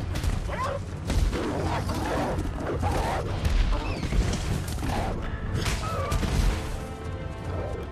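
Film fight sound effects: giant wolves snarling and growling among repeated heavy thuds and crashes of bodies colliding.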